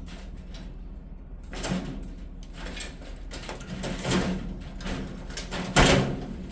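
A heavy tool box being pushed and dragged along, scraping and knocking in several separate bursts, with a loud bang near the end.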